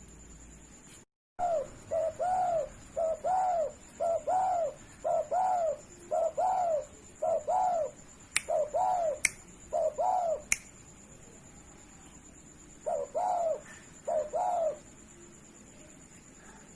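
Spotted dove cooing: a run of short rise-and-fall coos, about two a second, that breaks off about two-thirds of the way through, then resumes with four more. Three sharp clicks fall among the later coos, and a faint steady high whine runs under it all.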